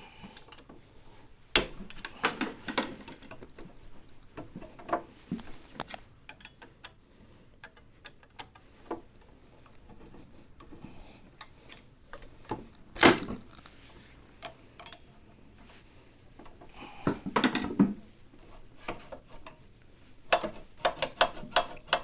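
Scattered metal clicks, clunks and knocks of hand tools and the front disc brake caliper being worked loose and handled on a Yamaha Cygnus X 125 scooter's front fork. A sharp knock comes about a second and a half in, a louder one about 13 seconds in, and a cluster of clunks around 17 to 18 seconds.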